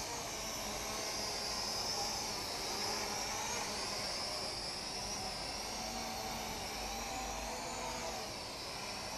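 LMRC LM06 small drone with stacked under-and-over propellers buzzing in flight, its high prop whine wavering up and down in pitch as it is flown, over a low wind rumble.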